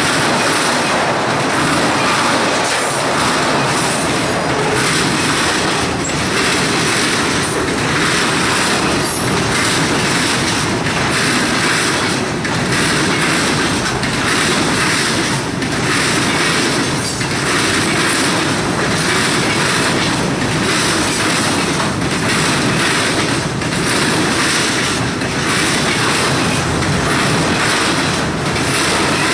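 Freight cars of a long train rolling past at track speed: a loud, steady clatter and rumble of steel wheels on rail, with a slight dip in the noise repeating every second or so as each car goes by.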